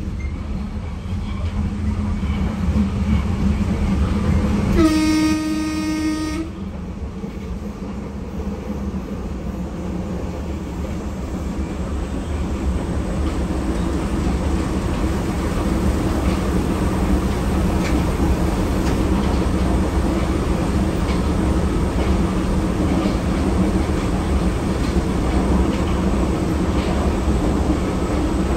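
Berlin U-Bahn F-series train running with a steady low rumble, giving one horn toot of about a second and a half about five seconds in. The running noise then grows gradually louder.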